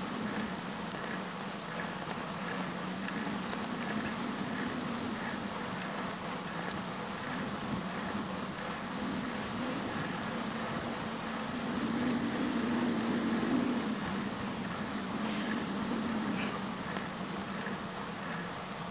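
Steady rolling noise of a bicycle riding on pavement, with wind on the microphone and a low wavering hum; the noise swells briefly about twelve seconds in.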